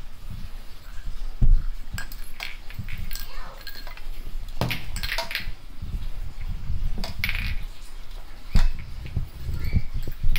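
Scattered light clicks, clinks and knocks of small household objects, with two louder dull thumps, about one and a half and eight and a half seconds in, over a low rumble.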